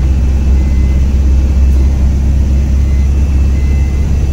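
Ashok Leyland AVTR 2825 tipper's 5.7-litre four-cylinder diesel engine running steadily while the truck is under way, a deep, even low drone heard from inside the cab.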